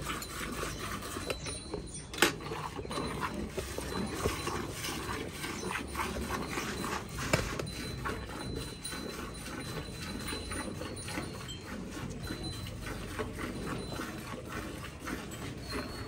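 A cow being milked by hand: streams of milk squirting into a steel bucket in a steady run of short spurts.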